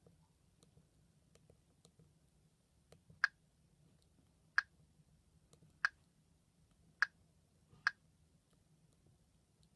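Five sharp clicks about a second apart, from the keys of a Sony Ericsson W395 mobile phone being pressed.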